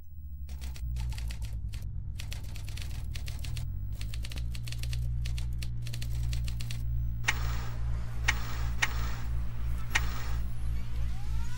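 Background music intro: a steady, pulsing deep bass under rapid irregular clicking like typing, giving way about seven seconds in to sharper single clicks. A short rising sweep comes near the end.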